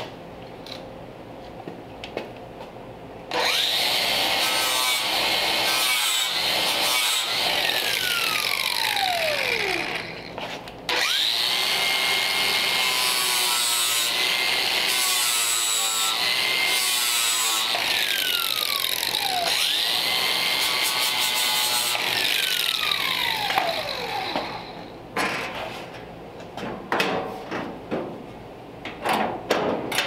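Power sander grinding down the sharp face of the steel door-latch catch on the doorpost. It starts about three seconds in, stops briefly near the ten-second mark, then runs again until about five seconds before the end, its pitch sliding down several times. It finishes with a few light knocks.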